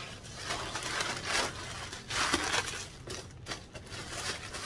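Tissue paper in a shoe box rustling and crinkling in uneven bursts as it is pulled open by hand, the loudest rustle about two seconds in.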